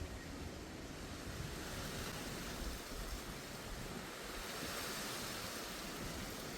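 Wind blowing outdoors, a steady rushing noise with low buffeting on the microphone, swelling a little about two-thirds of the way through.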